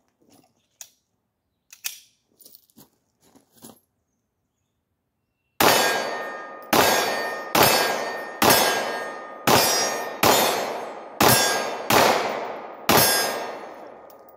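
A few light clicks as a Glock 17 is readied, then a string of nine 9mm pistol shots fired about one a second, each shot ringing out and fading before the next.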